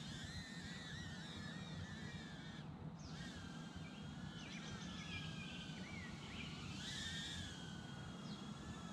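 Eachine E013 Plus micro quadcopter's brushed 8520 motors and propellers whining, the pitch wavering up and down as the throttle is worked to hold it steady in a hover; the whine drops away for a moment about three seconds in.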